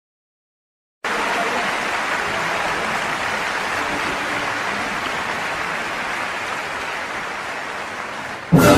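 Steady rushing noise, even and without any tone, starting about a second in and easing slightly. A sudden loud hit near the end.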